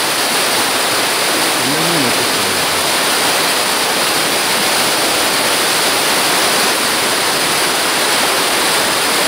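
White water sliding and cascading down a smooth bedrock slab in a mountain stream: a loud, steady rush.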